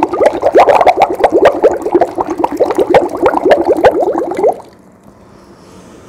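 Air blown through a drinking straw into a plastic jar of water, bubbling quickly and evenly, then stopping suddenly about three-quarters of the way through. The even bubbling is a slow, steady exhalation in a bubble-breathing exercise for loosening chest phlegm.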